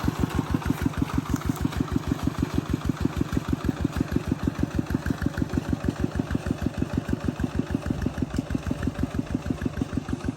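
Small engine running steadily at a low, even speed, with a regular putting beat of about eight pulses a second.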